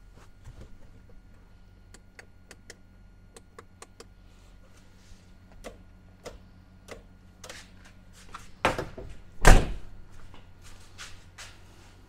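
A run of short, sharp clicks as vehicle switches are worked while testing the spotlight wiring, with two heavy thunks about nine seconds in, the loudest sounds here.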